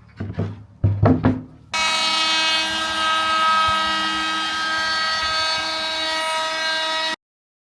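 A few short knocks, then a router fitted with a round-over bit starts up and runs with a steady whine, rounding over a test edge of plywood. The router cuts off suddenly near the end.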